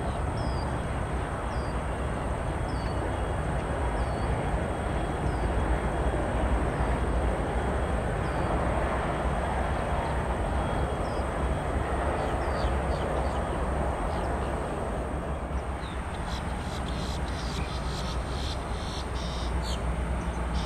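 Steady roar of a jet aircraft's engines heard from a distance across the airfield, swelling a little through the middle and easing off about two-thirds of the way through. A bird chirps about once a second over it, then quicker chirps crowd in near the end.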